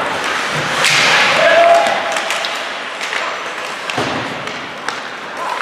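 Live ice hockey play in an echoing rink: sticks clacking, the puck being struck and thudding, and skates scraping on the ice, with a player's shout about a second in.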